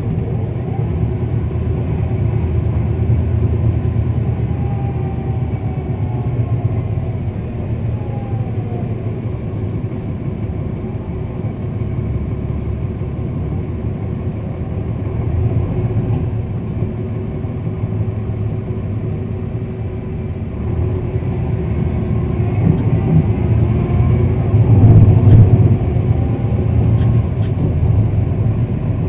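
Cummins ISL9 six-cylinder diesel and ZF six-speed automatic transmission of a 2010 NABI 40-foot suburban transit bus, heard from inside the bus as it drives. The engine note rises and falls several times, and it is loudest about 25 seconds in.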